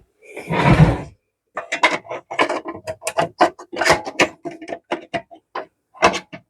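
A plastic dust-extraction attachment being handled on a benchtop belt sander: a scraping rustle with a low thump in the first second, then a long run of irregular plastic clicks, knocks and rattles.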